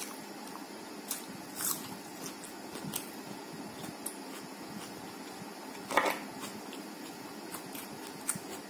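Close-miked chewing of a mouthful of soft rumali roti with tarka: small wet mouth clicks and smacks, with a louder one about six seconds in, over a steady background hiss.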